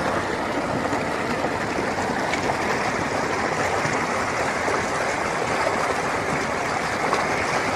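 Running water, a steady even rush like a flowing stream.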